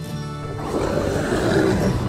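Background music with a rough monster roar sound effect over it, starting about half a second in and ending near the end.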